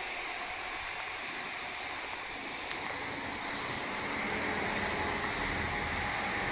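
Steady outdoor rushing noise, slowly getting a little louder, with a faint low hum coming in about two seconds in.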